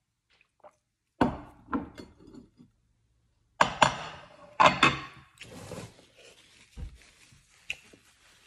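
Crockery handled on a wooden table: a few dull knocks, then sharp ceramic clinks as a small plate is picked up and set on a larger plate, followed by a soft rustle of a paper tissue.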